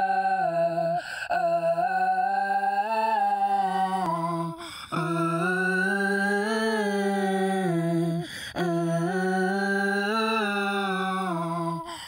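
Soundtrack of a single low hummed voice tone held in long phrases of about three and a half seconds, each swelling slightly in pitch, with short breaks about a second in, near the middle and about two-thirds through.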